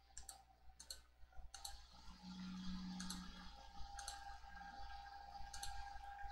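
Faint, scattered clicks of a computer mouse, about six spread over several seconds, over a low steady hum.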